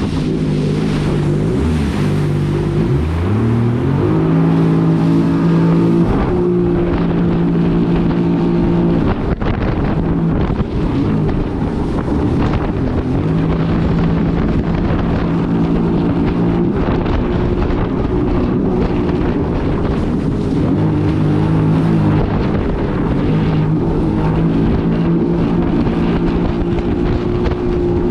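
Yamaha EX Sport WaveRunner's 1049 cc three-cylinder four-stroke TR-1 engine running under way. It climbs in pitch as the throttle opens about two to four seconds in, then holds speed with a few brief drops and pick-ups. Wind buffets the microphone throughout.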